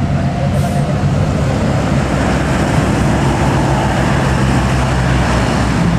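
A bus's engine running steadily as it passes close by, with road and tyre noise.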